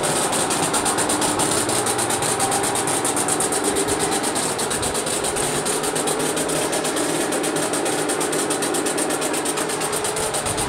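Heavy diesel engine idling steadily, with a fast, even pulse.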